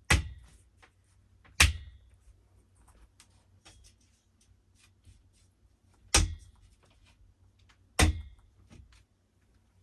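Four sharp knocks of flat-pack bed frame parts being handled and fitted together, about a second and a half apart, then after a gap two more, with small clicks and rattles of parts between.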